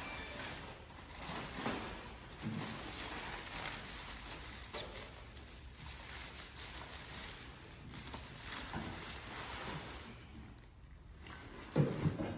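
Irregular rustling and scuffing of a cover being pulled off a shipped part, with scattered short handling noises.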